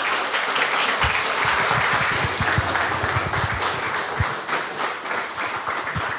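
Audience applauding: steady clapping from a small seated crowd, with a few low thumps in the middle.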